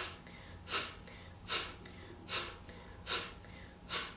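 Short, forceful puffs of breath blown out through the nose, six of them at an even pace of about one every 0.8 seconds, counted silently as a set of repetitions.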